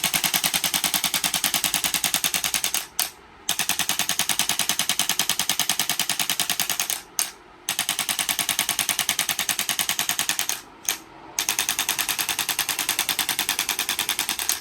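Electric chiropractic adjusting gun (1200 N) firing continuously, a fast machine-gun-like rattle of impulse strikes. It runs in four bursts with brief pauses between them.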